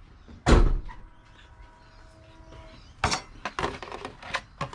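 Hands handling a plastic RC monster truck: a heavy thump about half a second in, then a run of sharp plastic clicks and knocks from about three seconds in.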